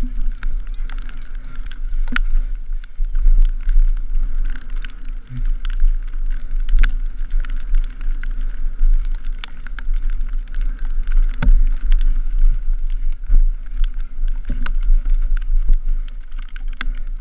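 Mountain bike ridden fast over rough trail, heard from a helmet camera: irregular knocks and rattles from the bike over a constant heavy rumble of wind on the microphone.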